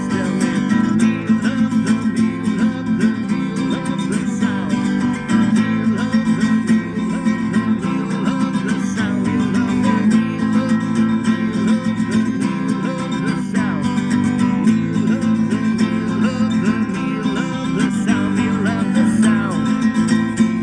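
Music led by a strummed and plucked guitar, with no clear singing.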